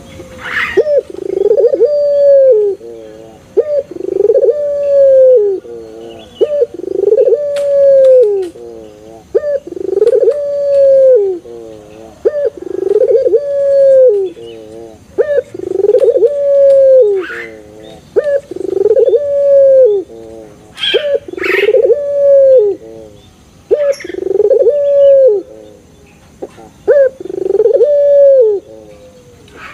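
A three-month-old puter pelung, a young domestic collared (Barbary) dove, cooing over and over. It gives about ten long, drawn-out coos, one roughly every three seconds. Each coo rises, holds and then drops away, with short wavering notes between them.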